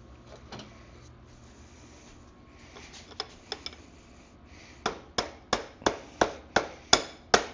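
Light taps, then a steady run of about eight sharp mallet blows on a screwdriver used as a drift, roughly three a second, knocking the stuck rear axle out of a dirt bike's wheel hub.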